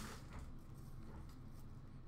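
Faint rustle of hockey trading cards being slid and flipped through the hands.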